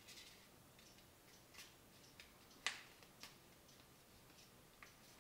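A sheet of paper being folded and pressed flat by hand on a wooden table: a few faint, scattered crinkles and taps, the sharpest about halfway through.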